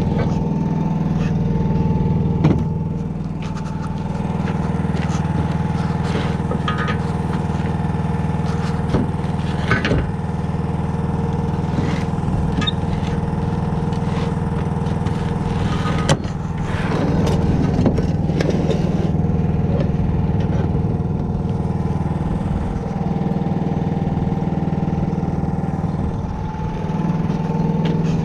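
A motor or engine running steadily with a constant hum, with a few sharp knocks and clanks, the clearest about two and a half seconds in and around sixteen seconds in.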